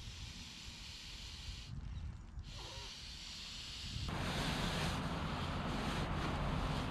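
Wind buffeting the microphone, an uneven low rumble that turns louder and fuller about four seconds in.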